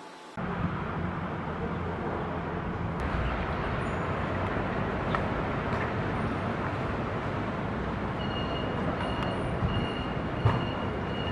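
Steady outdoor background noise, a rumble and hiss like distant traffic, that cuts in abruptly about half a second in. In the second half a faint high tone comes and goes in short pulses.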